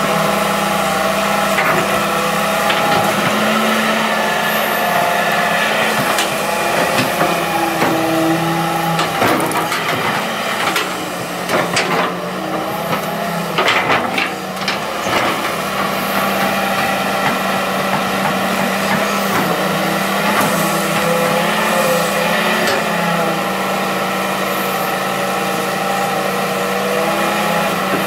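Hitachi EX200-3 hydraulic excavator's diesel engine running steadily under load while it digs soil. A cluster of knocks and clatter comes about ten to fifteen seconds in.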